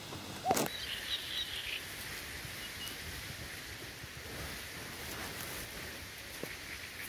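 Pondside outdoor ambience: birds chirping against a steady background, with a short sharp call about half a second in and a brief flurry of high chirps just after it.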